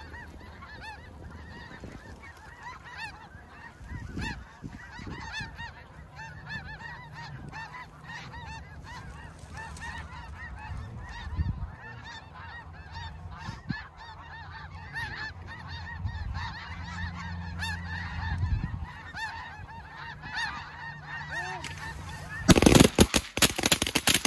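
A huge flock of snow geese calling overhead, a dense, continuous din of overlapping honks and yelps. Near the end, a rapid volley of shotgun fire breaks out, shots coming in quick succession and far louder than the geese.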